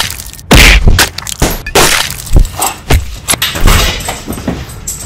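A rapid, irregular run of loud thumps, bangs and crashing knocks, about a dozen hits in five seconds, from a staged scuffle with bodies and objects slamming about close to the microphone.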